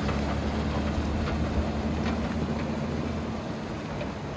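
An 80-series Toyota Land Cruiser's engine running at low, steady revs as it crawls through a shallow river, with water rushing and splashing around its tyres. The sound fades a little near the end as the vehicle pulls away.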